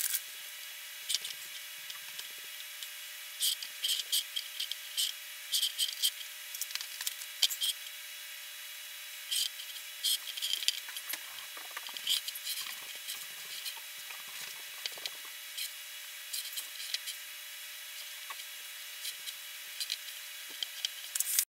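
Hands handling a drone and pressing a vinyl skin sticker onto its arms: irregular small clicks, taps and rustles of vinyl, backing paper and plastic, over a steady background hiss. The sound cuts off suddenly near the end.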